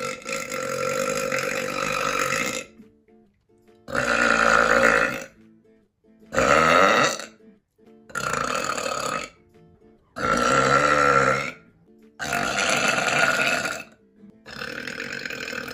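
A person burping loudly, about seven long burps one after another, each lasting one to two and a half seconds, with short pauses between them.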